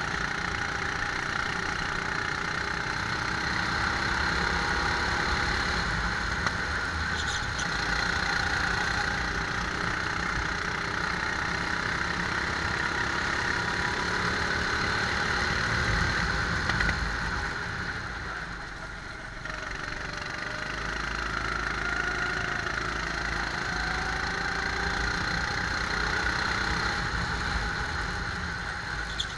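Rental go-kart engine running under load on track, its pitch rising and falling as the kart speeds up and slows through corners. About two-thirds of the way through it briefly drops in loudness as the driver lifts off, then picks up again.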